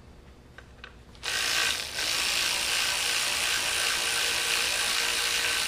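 Air ratchet running steadily on the engine's fan hub bolts, unscrewing them to take the fan off; it starts about a second in and falters briefly once.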